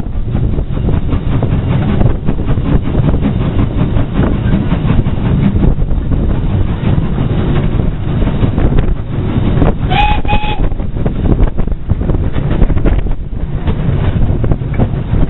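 A train running on track: a steady heavy rumble of wheels and van, heard from an open brake van right behind Beattie well tank steam locomotive 30587, with wind on the microphone. About ten seconds in, the locomotive's steam whistle gives two short toots.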